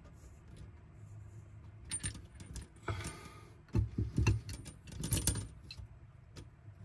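An adjustable wrench and a brass plumbing fitting clinking and knocking together, with handling rattles, as the taped brass adapter with a plastic hose connector is worked onto a braided tap hose. There are a few scattered clinks at first, then a denser run of sharp metallic clinks in the second half.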